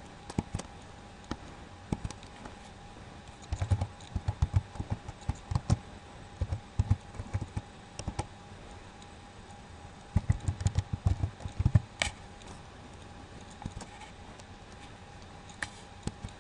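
Computer keyboard keystrokes in three quick bursts of typing, as a user ID and then a password are entered, with a sharper single click at the end of the last burst.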